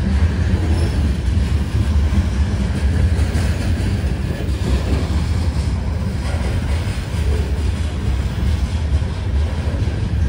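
Freight train of covered hopper cars rolling past: a steady low rumble of steel wheels on the rails, with a few faint clicks over rail joints.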